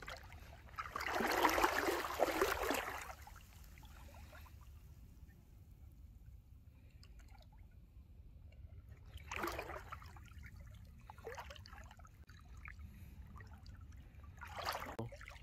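Water sloshing and splashing in three bursts, the first and longest about a second in, with shorter ones near the middle and the end.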